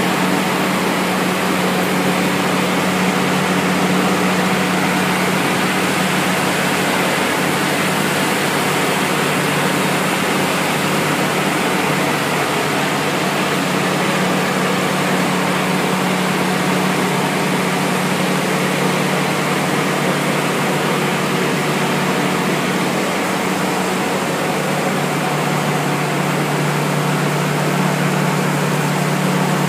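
Wood pellet production line machinery running: a steady, loud mechanical drone with a constant low hum, from the motor-driven belt conveyor and the plant's machines.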